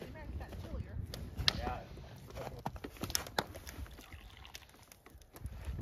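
Pump-action airpot thermos being pumped by hand, with several sharp clicks and knocks as hot chocolate dispenses into a plastic mug.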